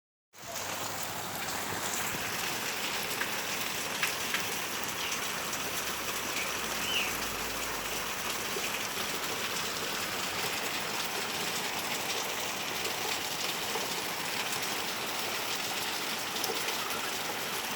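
Steady rain falling, an even hiss with a few louder drops ticking now and then.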